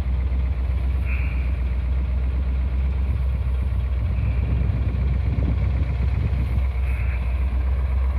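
1970 Plymouth Barracuda's 426 Hemi V8 idling with a steady low rumble.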